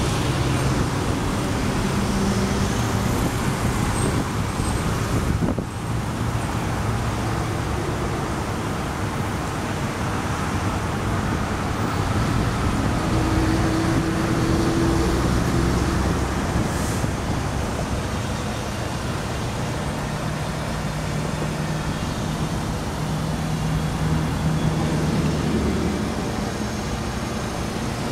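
Steady motor-vehicle and traffic noise, with low engine hum that drifts in pitch as vehicles run and pass.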